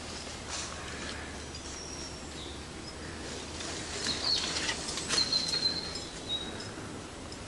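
Wild birds calling in woodland with short, thin whistled notes over a steady background hiss. About four seconds in, a cluster of sharp clicks and scrapes comes in; it is the loudest part and is gone by about five and a half seconds.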